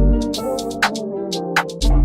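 Intro music with a drum-machine beat and hi-hats; the bass and kick drum drop out briefly and come back in near the end.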